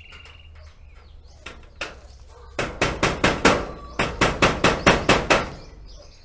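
Hammer striking while a corrugated roof sheet is fixed in place: a few scattered knocks, then two quick runs of strikes at about four a second, the second run longer.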